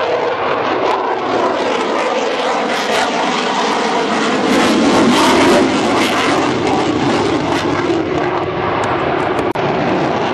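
Eurofighter Typhoon's twin jet engines during a display pass: a loud, continuous rush with a low hum that slowly shifts in pitch, loudest a little past halfway.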